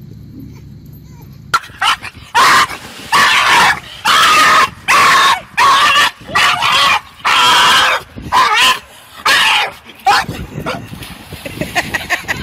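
A dog giving a loud run of high-pitched yelping barks and whining cries, about ten in a row, starting about a second and a half in and stopping around ten seconds in.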